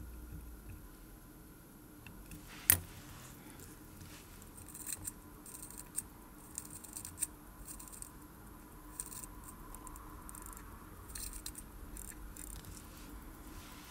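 Small metal clicks and light scrapes of a watchmaker's tools handling the parts of a wristwatch movement, with one sharp click about three seconds in and scattered softer ticks after.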